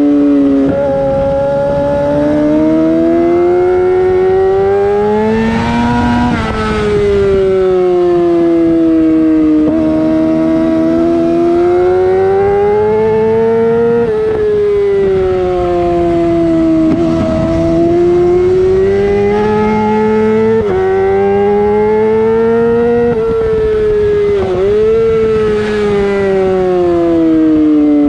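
Yamaha YZF-R6's inline-four engine through a LeoVince full-system exhaust, ridden hard on a track. The engine note climbs steadily under acceleration and drops sharply at each quickshifter upshift. Several times it falls away under braking before climbing again.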